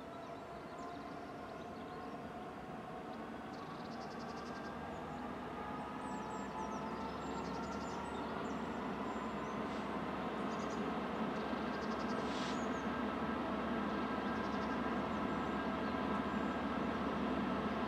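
GBRf Class 66 diesel locomotive, its two-stroke EMD V12 engine running as it hauls a loaded train of gypsum wagons toward the listener. The sound grows steadily louder and the engine note rises slightly. Short high chirps from birds sound faintly over it.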